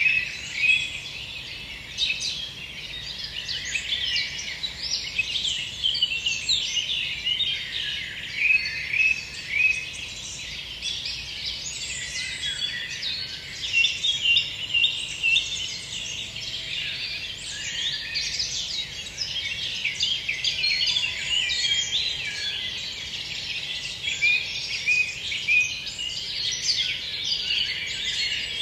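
Many songbirds singing at once in a forest chorus: dense, overlapping high chirps and trills with no pause.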